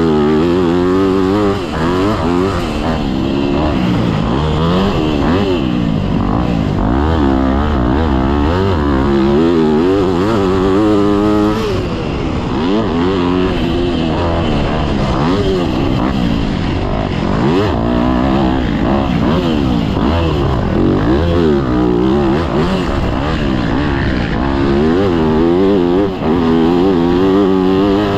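Yamaha YZ motocross bike engine heard from on board, revving up and falling back over and over as the rider works the throttle and shifts through a lap. About eleven seconds in, one longer climb in pitch breaks off into a sudden drop.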